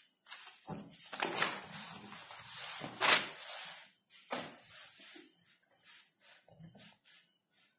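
Paper pages of a notebook being turned over and smoothed down: a series of paper rustles, loudest in the first three seconds or so, then fainter rustles.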